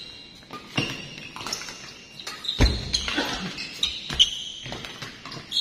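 Badminton rally in a hall: sharp hits of rackets on the shuttlecock, mixed with short high squeaks of players' shoes on the court floor, at irregular intervals about a second apart.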